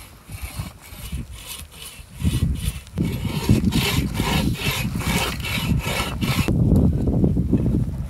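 Bow saw cutting through a log in quick back-and-forth strokes, about three a second. The sawing stops about six and a half seconds in, leaving a low rumble.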